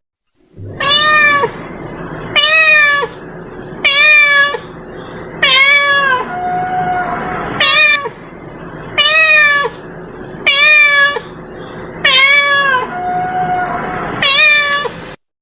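Domestic cat meowing repeatedly, about nine meows roughly a second and a half apart, each one falling in pitch at its end.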